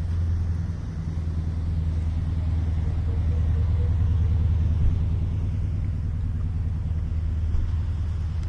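Steady low rumble of an idling vehicle engine, unchanging throughout.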